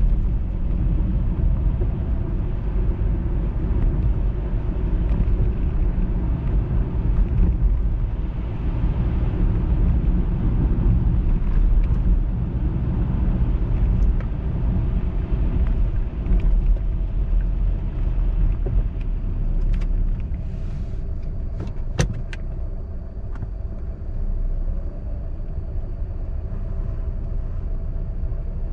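Car driving on a wet, slushy road, heard from inside the car: a steady low rumble of tyres and engine. A few sharp clicks come about two-thirds of the way through, one louder than the rest, and the rumble eases a little after them.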